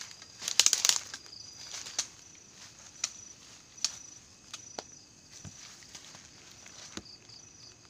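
Footsteps and rustling on the forest floor beside a tarp shelter: a loud rustle about half a second in, then a few separate sharp steps or knocks. Insects chirp faintly in short repeated pulses in the background.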